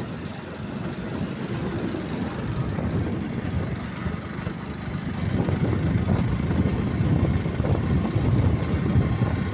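Steady road and wind noise from a vehicle driving along a highway, growing louder about five seconds in.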